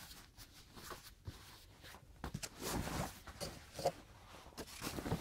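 Cotton camouflage shirt and trousers being unfolded and handled: faint, irregular fabric rustling with a few soft taps.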